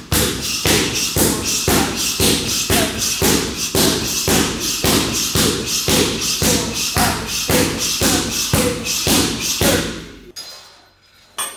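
A steady, fast rhythm of thumps, about three a second, that fades out about ten seconds in.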